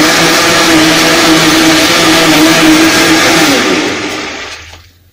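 Electric blender motor running at a steady high speed, then switched off about three and a half seconds in and winding down, fading out over about a second.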